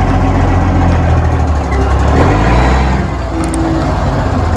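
Heavy-duty tow truck's diesel engine running with a deep, steady sound.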